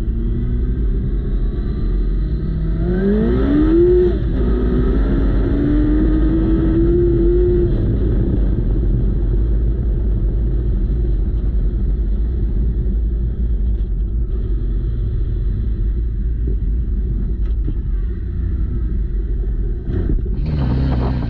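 Buggy's Honda CBR1100 inline-four motorcycle engine running under way: it revs up about three seconds in, shifts and holds its revs until about eight seconds, then eases off, over a heavy low rumble. A brief loud burst of noise comes near the end.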